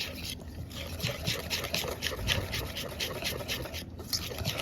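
Pancake batter being stirred briskly in a bowl: wet, rhythmic strokes about five a second, with a brief pause shortly after the start and another near the end.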